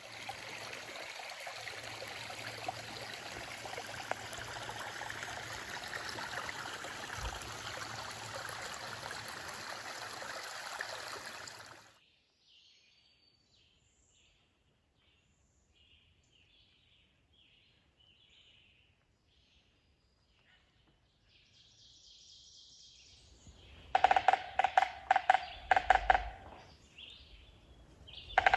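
Running water, steady for about twelve seconds, then cut off abruptly. Faint, short bird chirps follow. Near the end, music with a sharp, clicking percussive beat comes in.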